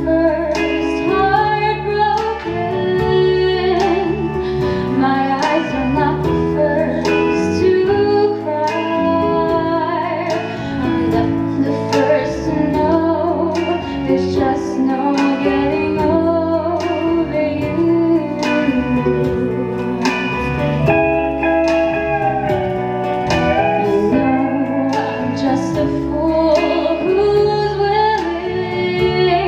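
A young woman singing a slow song into a handheld microphone, her voice amplified over instrumental accompaniment, with vibrato on held notes.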